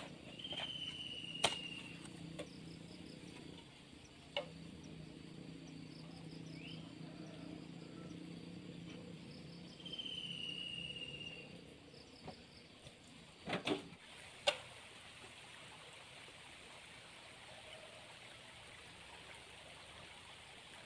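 Quiet outdoor ambience: a faint low hum that fades out about halfway through, two short whistled bird calls, and a few sharp knocks, two of them close together past the middle.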